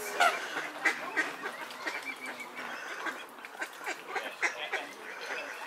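Waterbirds on a lake calling: many short, overlapping calls follow one another, with one brief rising call just after the start.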